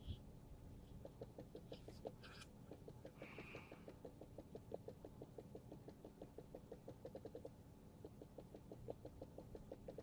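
Faint, quick run of small light clicks, several a second, starting about a second in.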